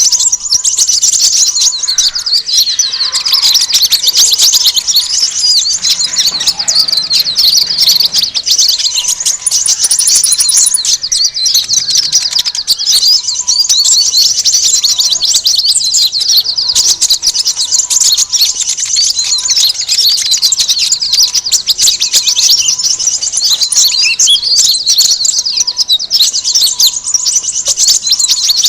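Bird-lure recording of a noisy flock of small birds: many high-pitched chirps and twitters overlapping in a dense, unbroken chatter, used to draw konin and other small birds in.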